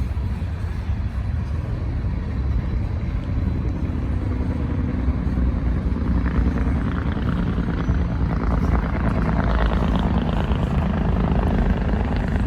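Freight train passing with a steady low rumble. From about six seconds in, a truck's engine brake (Jake brake) on the nearby interstate fires with a loud, rapid staccato pulsing that peaks around ten seconds.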